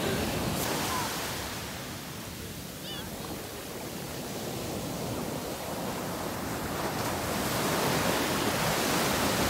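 Ocean surf breaking and washing up the sand in a steady rush of foam, easing a little about two seconds in and building again toward the end.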